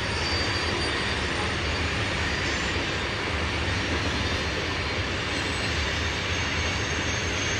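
Freight train cars rolling past at steady speed: a continuous rumble and rattle of steel wheels on rail.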